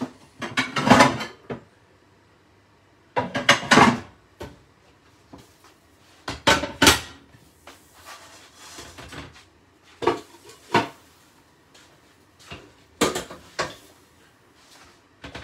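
Kitchen clatter of cookware and crockery: a glass pan lid, a frying pan and a ceramic plate knocked and set down on a glass hob, in about five short bouts a few seconds apart.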